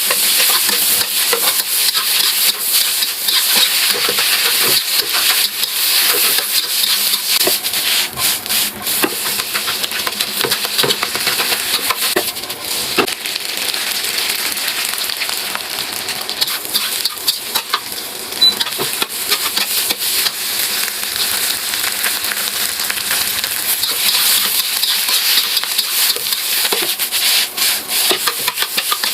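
Food sizzling in a hot pan while it is stirred, a steady frying hiss with many small clicks and scrapes of the utensil against the pan.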